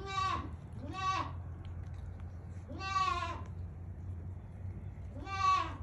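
Baby goat bleating four times: short, high cries that each rise and fall in pitch, spaced one to two seconds apart.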